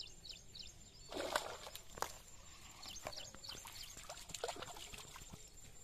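Water splashing and sloshing as a cast net is drawn in through shallow water, with a tilapia caught in it flapping at the surface; the loudest splash comes about a second in. Small birds chirp faintly.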